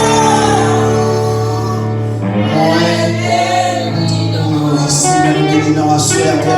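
Live gospel worship music: voices singing over long held chords.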